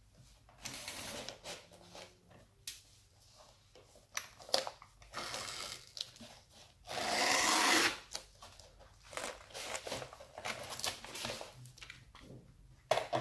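Paper being handled and worked at a table: irregular rustling, scraping and small clicks, with one longer, louder scrape of about a second near the middle.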